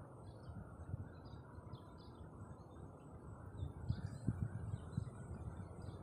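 Faint outdoor ambience: scattered short bird chirps over an uneven low rumble, which grows louder near the end.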